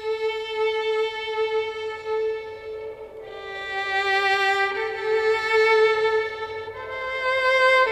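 Slow instrumental intro music: a single melody line of long held notes with a light vibrato, moving to a new note every second or two.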